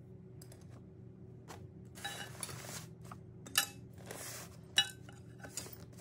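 Small metal parts clinking twice as a hand moves among them on a paper-covered bench, with rustling of the paper and a steady low hum underneath.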